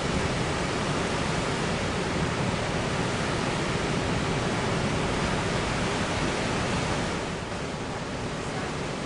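Steady roar of heavy surf breaking, easing slightly about seven seconds in.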